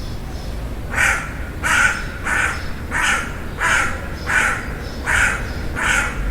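A crow cawing: a run of eight caws, roughly two-thirds of a second apart, starting about a second in, over a low steady background rumble.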